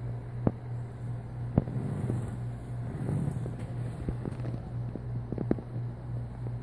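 A steady low hum, with several sharp taps and knocks scattered through it, two of them close together about five and a half seconds in.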